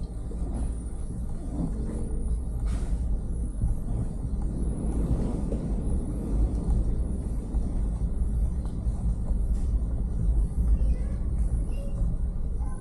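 Kawasaki ZX-25R 249 cc inline-four engine running as the bike is ridden, under a heavy low rumble.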